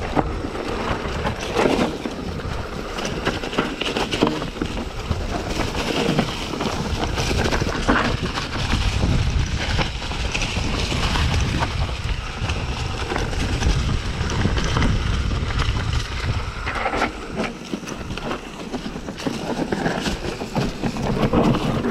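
Wind buffeting an action-camera microphone, over the rumble and scattered knocks of a vehicle riding over a rocky, gravelly track. The low rumble is heaviest in the middle of the stretch.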